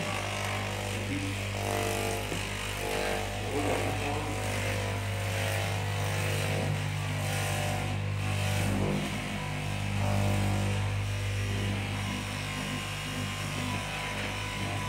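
Electric straight-knife fabric cutting machine running with a steady hum, its vertical reciprocating blade cutting through a stacked lay of fabric.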